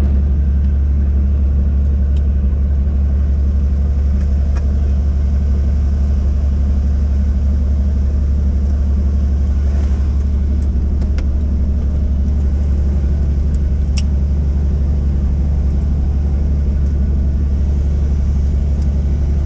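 Helicopter heard from inside the cabin: a loud, steady low drone of the rotor and engine running, unchanging throughout.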